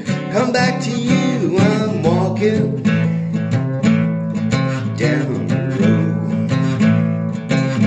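Country-style song with steadily strummed acoustic guitar and a singing voice.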